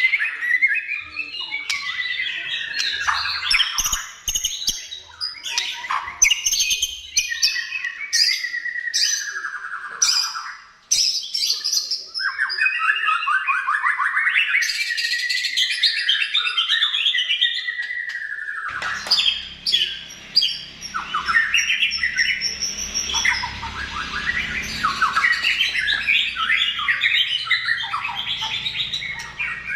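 White-rumped shama (murai batu) singing a long, continuous, varied song of rapid whistled phrases, gliding notes and sharp clicking notes. A faint low hum joins underneath about two-thirds of the way through.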